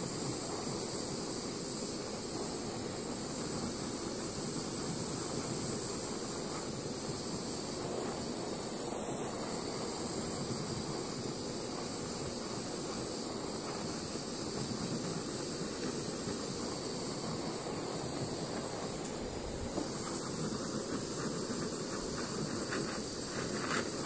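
Handheld gas torch burning with a steady hiss, its flame played over glue-lined heat-shrink tubing on a jumper cable lug.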